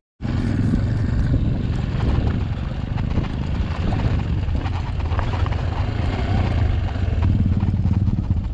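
Off-road trail motorcycle engine running steadily at low revs.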